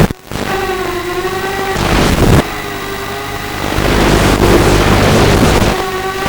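Walkera F210 racing quadcopter's brushless motors whining, the pitch dipping and rising with throttle, alternating with loud rushing wind noise.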